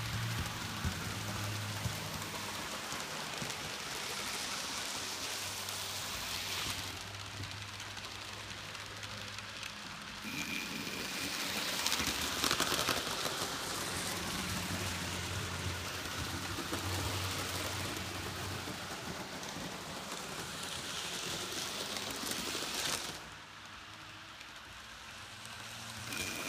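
Model trains running on a layout: a steady rattling hiss of wheels on the track with a low motor hum under it, dropping quieter about three-quarters through.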